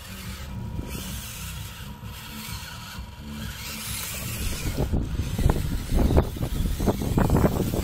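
Small electric motor and geared drivetrain of a 1/24-scale Losi Micro rock crawler whirring as it pulls a trailer over dirt. From about halfway, louder irregular rustling and knocks take over.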